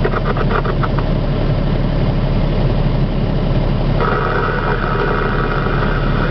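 Train cab with its diesel engine idling, a steady low hum. A few brief clicks sound just after the start, and a higher steady hiss joins about four seconds in.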